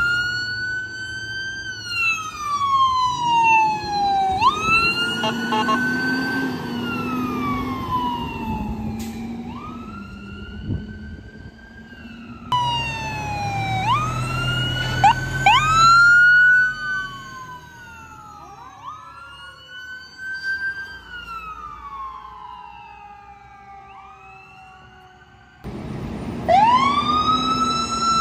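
Emergency vehicle sirens wailing from an ambulance and a fire engine pulling out: each cycle is a quick rise to a high pitch, then a long, slow falling glide, repeated over and over, with low vehicle rumble underneath. The sound changes abruptly twice, about twelve seconds in and near the end, as one siren gives way to another.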